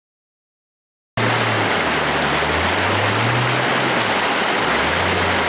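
Loud, steady rushing hiss that starts abruptly about a second in. Underneath it, a faint low engine note, from the off-road 4x4, rises and falls in pitch.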